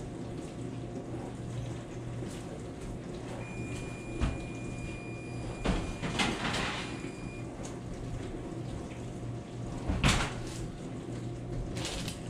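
Kitchen oven door being opened and a metal baking sheet pulled out off the oven rack: knocks and a metal clatter through the middle, and a sharper knock about ten seconds in as the door is shut. A steady high tone sounds for about four seconds in the middle, over a steady low hum.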